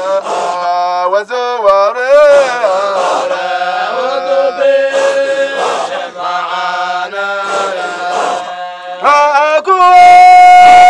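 Men's voices chanting a Qadiriya Sufi dhikr in rhythmic, repeated phrases that rise and fall in pitch. Near the end one long held note comes in, the loudest part.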